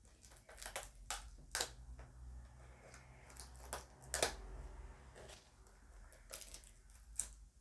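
Cosmetics packaging being handled and opened: a faint scatter of sharp clicks and rustles.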